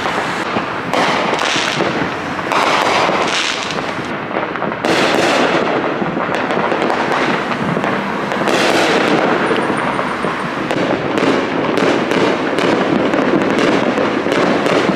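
Fireworks going off, a dense, continuous crackling and popping of many small bursts.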